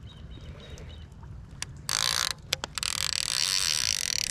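Fishing reel ratcheting as line runs against its clicker or drag, in a short spell about two seconds in and a longer one from about three seconds in, with a few sharp clicks of handling before it.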